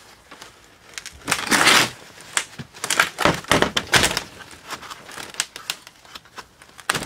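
Wooden sand-casting flask being worked loose by hand: a scrape of wood on packed sand, then a quick run of sharp knocks and clicks, with lighter ticks after.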